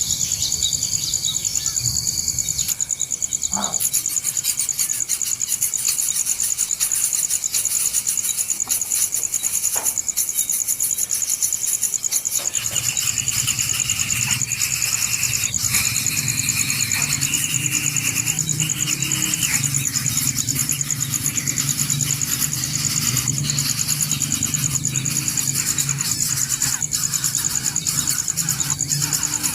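Insects chirring in a steady, rapid, high-pitched trill, with scattered clicks; a low steady drone joins about halfway through.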